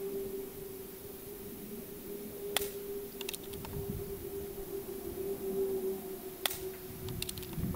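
Umarex Gauntlet PCP air rifle fired twice, about four seconds apart: each shot a short sharp crack, followed within a second by a few lighter clicks.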